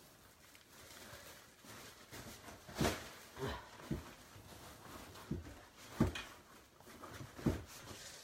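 About six short knocks and bumps, irregularly spaced over a few seconds, as a baby animal moves about on the wooden floor right beside the phone.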